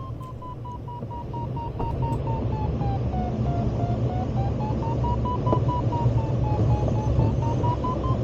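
Glider variometer's audio tone beeping rapidly, its pitch sagging and rising again twice as the climb rate changes. A steady low rumble runs underneath.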